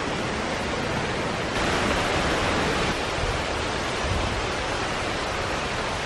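Steady rushing of running river water, an even hiss-like wash that swells a little about a second and a half in, with a few low bumps later on.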